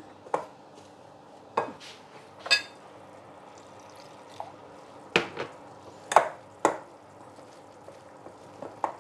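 A utensil clinking and knocking against cookware about seven times at irregular intervals, as fritter batter is stirred with added water. A faint steady hum runs underneath.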